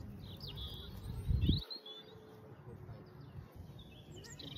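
Small birds chirping and twittering, with a low rumble that swells about a second in and then cuts off suddenly.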